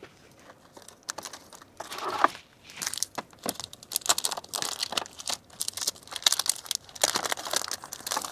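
Crinkly packaging being handled and folded by hand, in irregular bursts of crinkling that start about a second in and go on to the end.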